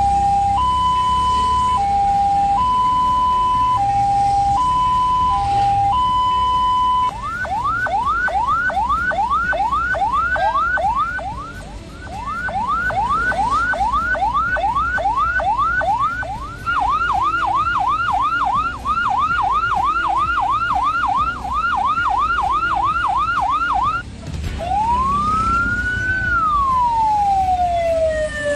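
Electronic ambulance siren switching through its patterns. It starts with a two-tone hi-lo that alternates about once a second. It then moves to a fast yelp of rising sweeps, about three a second, with a short break early on, and near the end to a slow wail that rises and then falls.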